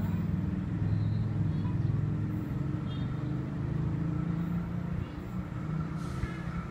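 Diesel locomotive engine running with a deep, steady throbbing rumble close by. A faint higher tone joins about five seconds in as a second train approaches.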